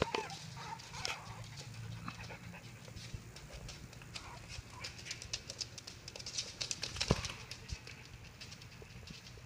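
Small white puppies moving about in a padded dog bed: many light scratches and rustles of claws and bodies on the fabric, with a few small puppy squeaks and a sharper knock about seven seconds in.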